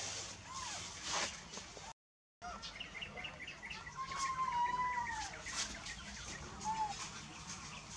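Animal calls: a quick run of short high chirps, then a long whistled call that rises and falls, and one short call near the end. The sound drops out briefly about two seconds in.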